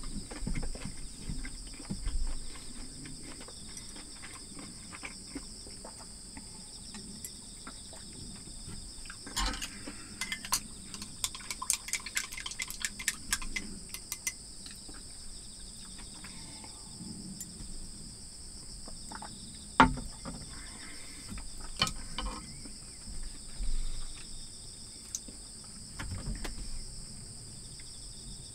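Insects chirring steadily in two high-pitched bands. About ten seconds in come a few seconds of rapid light clicking from chopsticks stirring in a plastic cup, and a single sharp knock about twenty seconds in is the loudest sound.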